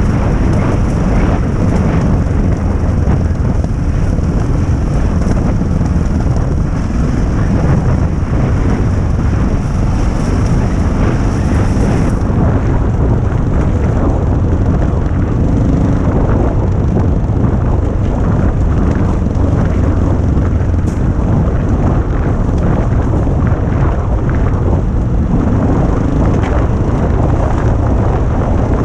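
Adventure motorcycle engine running steadily under way, mixed with wind buffeting the microphone.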